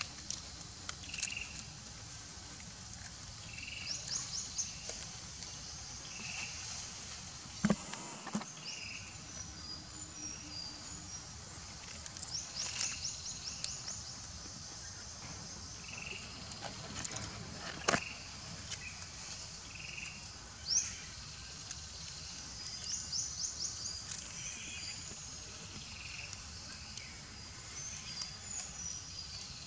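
Outdoor insect chorus: short rapid high-pitched trills recurring every several seconds over a soft call that repeats every second or two, with a few sharp knocks about eight and eighteen seconds in.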